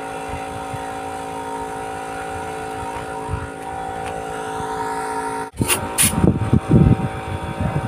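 A steady machine hum with several fixed tones. It breaks off suddenly about five and a half seconds in and gives way to irregular knocks and two sharp clicks of handling.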